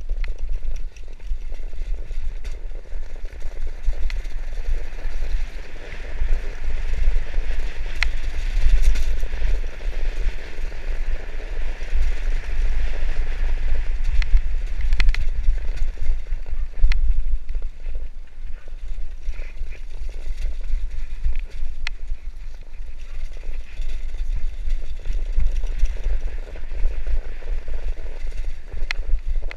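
Mountain bike riding downhill over a cobbled and then dirt track: tyres rumbling, the bike rattling with many sharp knocks over the stones and bumps, and wind buffeting the microphone.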